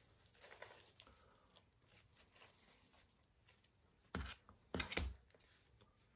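Faint handling sounds as a pizza slice is picked out of a cardboard takeaway box: light rustles and clicks, then two louder short rustling knocks about four and five seconds in.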